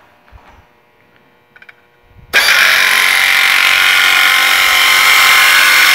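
Air-powered nibbler running loudly and steadily as its punch cuts a curve in sheet metal. It starts abruptly about two seconds in, after a few faint handling clicks.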